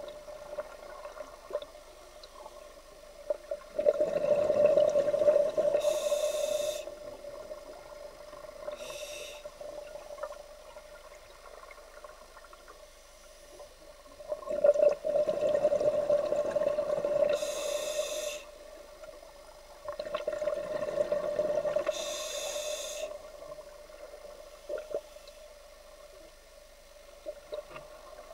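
Scuba diver breathing through a regulator underwater: three long exhalations, each a loud rush of bubbles lasting a few seconds, with short high-pitched regulator hisses. A steady hum runs underneath.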